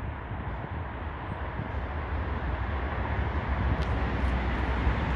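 Steady outdoor background rumble and hiss, slowly growing louder, with a few faint clicks near the end.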